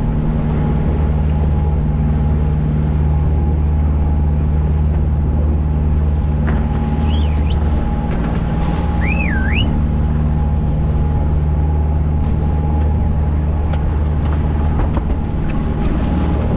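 Fishing boat's engine running steadily under way, a low drone with a faint steady whine above it and the wake rushing past. A short wavering high squeal comes about halfway through, and a few sharp knocks come later.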